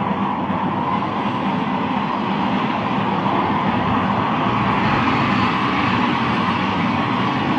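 Steady, even running noise of a vehicle, with no rise or fall in pitch.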